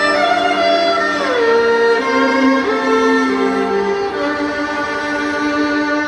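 Bowed string music, violin-led, over an arena sound system: long held notes with a downward slide about a second in.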